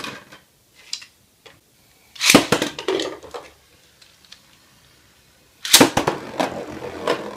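Two Beyblade Burst spinning tops clashing in a plastic stadium: a loud cluster of sharp clacking hits about two seconds in and another near the end, with a few single clicks between.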